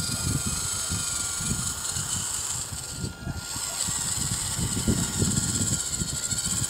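Insects give a steady high buzz, with a thin steady tone under it. Irregular low rumbling comes and goes, typical of wind on the microphone.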